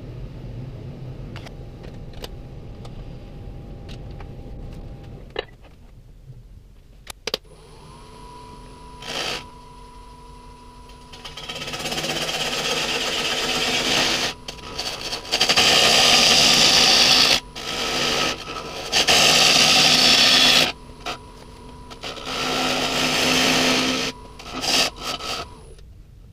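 Wood lathe motor comes on about a quarter of the way in and runs with a steady whine. A turning tool then cuts the spinning pin oak bowl in long, loud, rough passes, the loudest two in the middle; this is finish-turning of dry oak.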